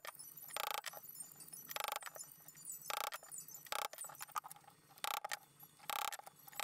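A hammer striking a steel punch held on a leather strap: about six sharp metallic strikes, roughly a second apart, each ringing briefly. The strikes are punching holes through the leather.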